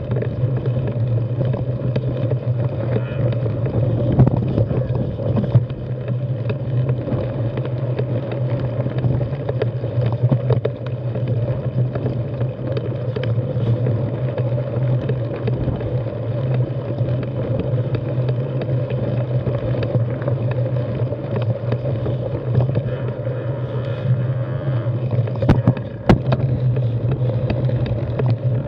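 Specialized 6Fattie carbon mountain bike on plus-size tyres rolling over rocky dirt singletrack, heard from a camera mounted on the bike: a steady rumble of tyres and wind on the microphone, with scattered knocks and rattles from the bike hitting rocks, a cluster of them near the end.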